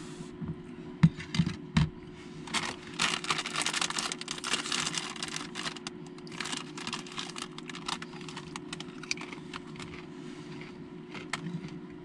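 A bag of Cool Ranch Doritos crinkling and rustling as it is opened and handled, with a few light knocks about a second in.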